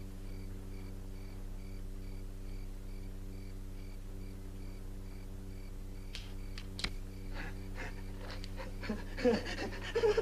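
Low steady hum of an old television soundtrack under a faint, regularly pulsing high chirp. A few sharp clicks about six to seven seconds in, rifles being cocked, then heavy breathing and shuffling near the end as a man scrambles to his feet.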